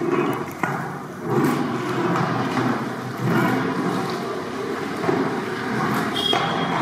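Long metal ladle stirring thick chicken curry in a large metal cooking pot over a wood fire: scraping and wet churning that swells with each stroke, with a few sharp knocks of metal on metal.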